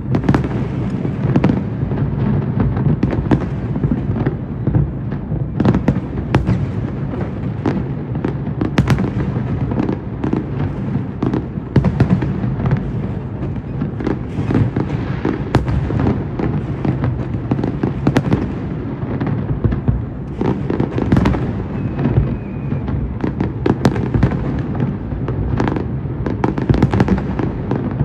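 Fireworks display in a continuous barrage: a dense rumble of bursts with many sharp cracks and bangs, with no break.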